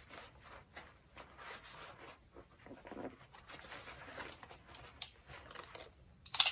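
Hands rummaging in a fabric sling bag, with irregular soft rustling and scraping as a revolver is drawn out of it, and one sharp click near the end.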